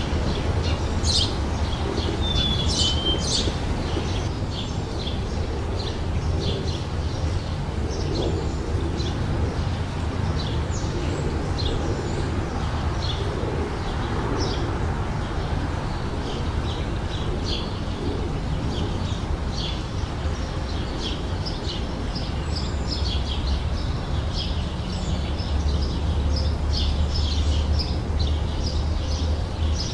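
Small birds chirping and singing, many short high chirps in quick succession, over a steady low rumble.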